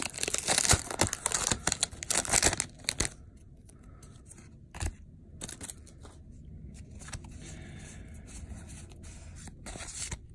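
Foil Pokémon booster pack wrapper being torn open and crinkling for about the first three seconds, then fainter rustles and small clicks as the trading cards are handled.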